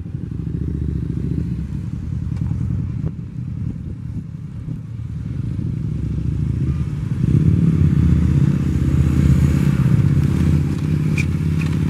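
Motorcycle engine running, growing louder about seven seconds in as the bike approaches.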